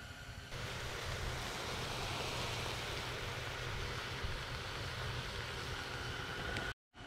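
Sausages sizzling in a frying pan, a steady hiss that cuts in about half a second in and stops abruptly just before the end.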